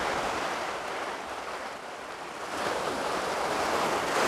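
Low sea waves breaking and washing over shallow sand. The rush of surf eases about two seconds in, then builds again as the next wave comes in.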